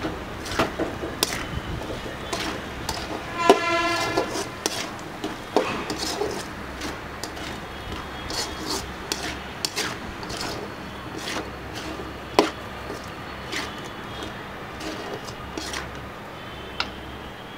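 A spatula scraping and knocking against an aluminium kadai, irregular strokes as frying shallots and garlic are stirred. A brief horn-like tone sounds about three and a half seconds in, lasting around a second.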